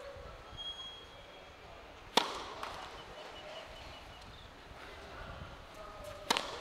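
Two sharp tennis-ball impacts about four seconds apart, the louder about two seconds in. The second, near the end, is a serve struck by the racket.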